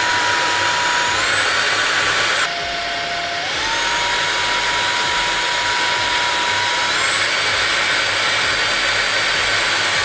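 Lubluelu 202 cordless vacuum's brushless motor running hand-held, a steady high whine over a rush of air, switched between suction speeds. About two and a half seconds in it drops to a lower pitch and level, then climbs back up within a second, and it steps up once more around seven seconds in.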